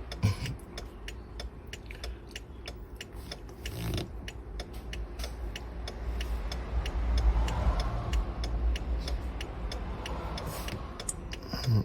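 Irregular light clicks and ticks, several a second, over a steady low rumble that swells for a few seconds in the middle.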